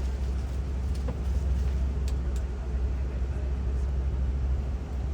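Safari ride truck's engine and road noise heard from on board: a steady low rumble with a few faint ticks about two seconds in.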